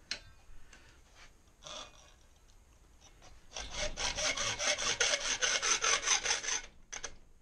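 Hacksaw cutting cheap aluminium sheet clamped in a vise: after a few light clicks of handling, fast even back-and-forth strokes, about six a second, rasp for about three seconds from around the middle, then stop.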